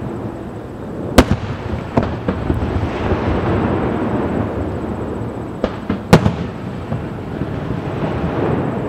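Aerial firework shells bursting: two sharp bangs about five seconds apart, the first about a second in, with a few smaller pops, over a continuous low rumble.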